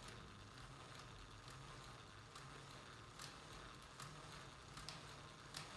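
Lionel BR-50 O-scale model steam locomotive standing still, giving a faint, steady hiss with scattered light ticks.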